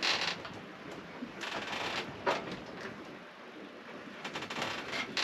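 Cabin noise of a sailing yacht under way at sea: a rushing hiss that comes and goes in bursts, with scattered small clicks and knocks.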